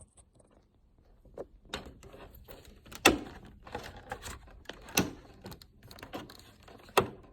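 Plastic snap-clips and housing of a Dell Inspiron 24 3455 all-in-one clicking and creaking as the clipped-on plastic cover is pried apart. Three sharp snaps about two seconds apart stand out among smaller clicks and scrapes.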